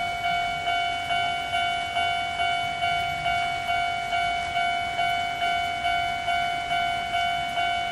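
Railway level-crossing warning bell ringing, a clanging electronic tone repeating at an even pace of a little over twice a second.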